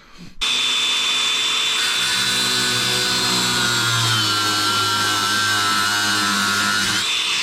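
Angle grinder starting abruptly and cutting into a rusted exhaust flange bolt: a loud, steady high whine whose pitch sags slightly as the disc bites, then stops near the end.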